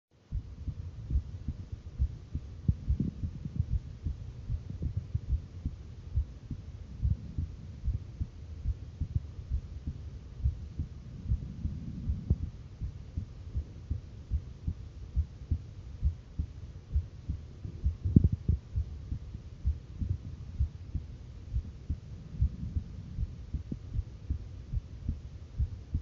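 A woman's heartbeat heard through a stethoscope chestpiece pressed on her skin: steady, evenly spaced low thumps over a faint low hum, with one louder thump about eighteen seconds in.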